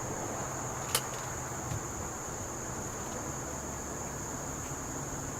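Steady high-pitched insect chirring, with one sharp click about a second in and a faint soft knock just after it.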